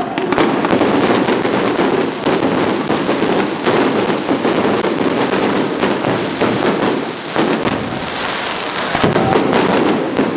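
Fireworks going off in a dense, continuous crackle of many small rapid bursts.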